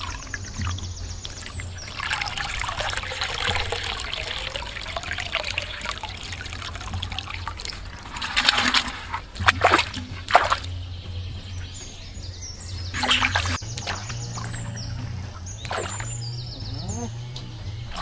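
Water gurgling and sloshing in a clay pot as it is dipped and filled, with a run of sharp splashes around the middle and another a few seconds later.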